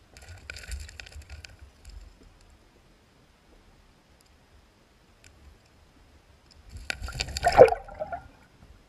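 Aquarium water splashing and gurgling in two bursts: a softer one at the start lasting about two seconds, and a louder gurgle about seven seconds in.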